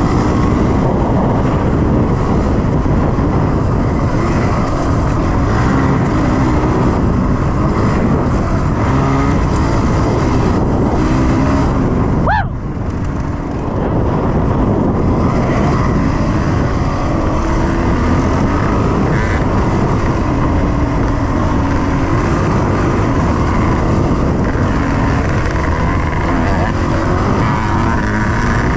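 Dirt bike engine running under way, heard close from the rider's own handlebars; the engine sound dips briefly about twelve seconds in.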